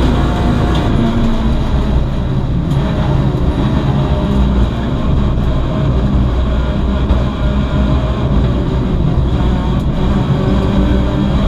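In-cabin sound of a VW Lupo GTI race car at racing speed: its 1.6-litre four-cylinder engine drones under load over heavy road and chassis rumble through the stripped cabin, the engine note rising near the end as it accelerates.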